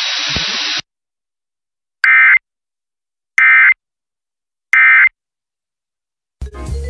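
Emergency Alert System end-of-message code: three short, identical buzzing bursts of SAME digital data tones, about a second apart, marking the end of the test alert. Under a second in, the hiss-laden weather-radio audio before them cuts off, and other program audio starts near the end.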